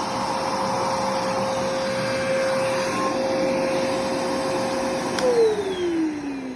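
Bissell PowerForce bagged upright vacuum (model 71Y7-3, 10-amp motor) running with a steady motor whine. About five seconds in, a click as it is switched off, and the motor winds down, its whine falling in pitch.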